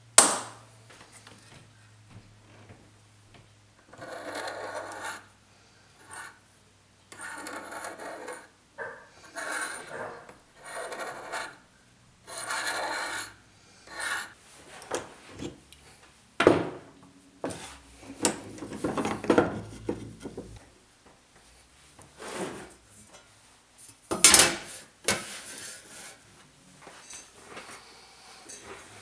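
A centre punch snaps once against a brass sheet. Then steel dividers scribe a circle into the brass, a run of scratching strokes lasting about a second each, with another sharp knock some 24 seconds in.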